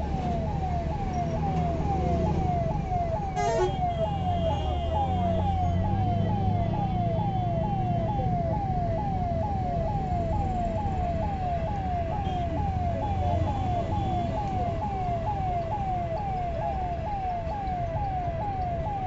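Airport fire truck siren sounding in a fast repeating pattern, each cycle a falling tone, about two a second, over a low rumble.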